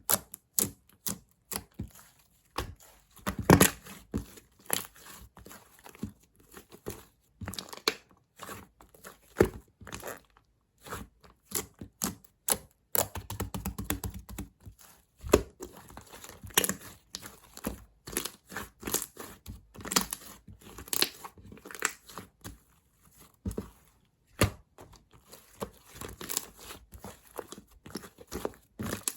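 Chewy slime being squished, stretched and pressed by hand, giving an irregular run of sharp sticky clicks, pops and crackles.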